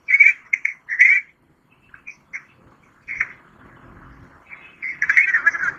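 A voice coming through a phone's loudspeaker, thin and tinny, in short broken bursts too muffled to make out as words.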